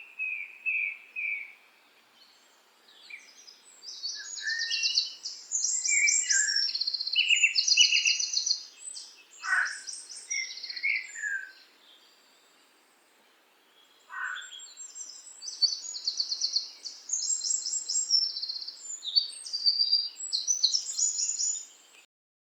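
A small songbird singing a long, varied song of rapid trills and high chirps, broken by a couple of short pauses. It cuts off suddenly near the end.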